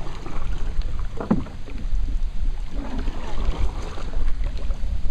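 Wind buffeting the microphone of a camera on a moving canoe, an uneven low rumble, with faint brief bits of voice about a second in and again around three seconds in.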